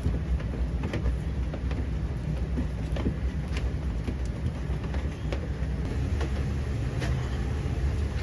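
Kitchen noise: a steady low hum with light, irregular knocks and clicks from hand-work at the counter.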